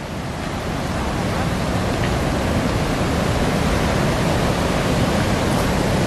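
Steady rushing of water from the Great Falls of the Passaic River, a continuous even noise with no breaks.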